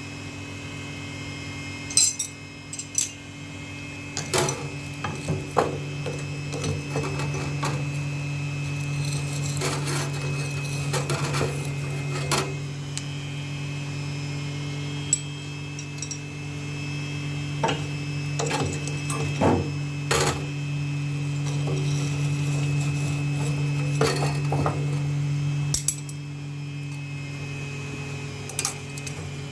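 Workshop tools at work in knife making: a machine motor hums steadily, louder from about four seconds in until it drops away near the end, while tools and workpieces clink and knock now and then.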